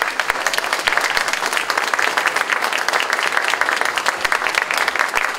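Audience applauding: a dense, steady mass of hand claps from many people.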